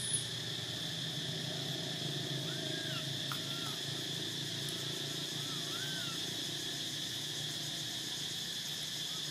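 Steady high-pitched drone of insects calling in the forest, with short soft rising-and-falling calls now and then. A brief sharp tick right at the start.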